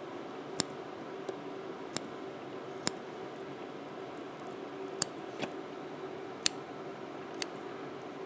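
Small fly-tying scissors snipping spun deer hair, trimming it into a ball on the hook. About seven separate sharp snips at irregular intervals, over a faint steady hum.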